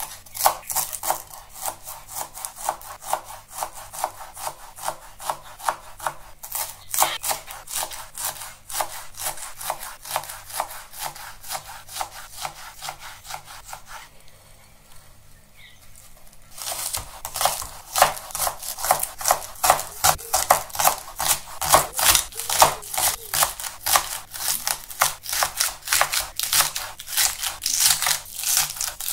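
Kitchen knife slicing spinach leaves on a plastic cutting board, a steady run of quick strokes about three a second. After a pause of about two seconds, the knife chops spring onions into rings in a louder, faster run of about four strokes a second.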